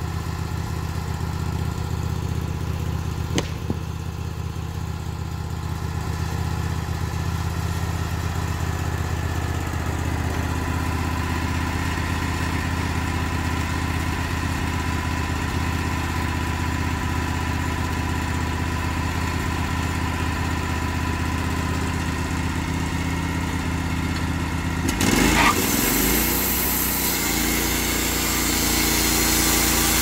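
The gas engine of a Wood-Mizer LT15GO band sawmill runs steadily at idle. About 25 seconds in it is throttled up with a brief clatter and settles at a higher, steady speed, ready for the cut.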